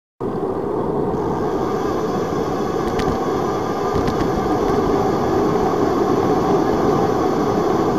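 Steady vehicle engine and road noise heard from on board, starting abruptly just after the start, with a couple of faint clicks about three and four seconds in.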